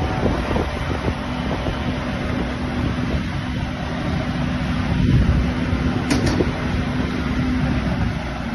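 Gusty wind buffeting the microphone, over a steady engine hum. Two short clicks about six seconds in.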